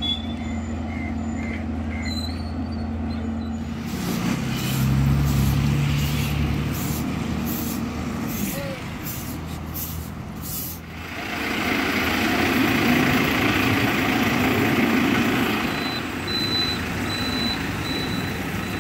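Diesel engines of road-paving machinery and a truck running, with a run of short hissing sounds in the middle. A reversing alarm beeps steadily near the end.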